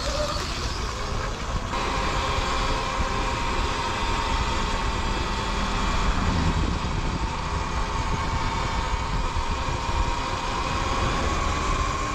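Sur-Ron electric dirt bike's motor whining steadily while riding, the pitch rising a little near the end, over low wind and tyre rumble.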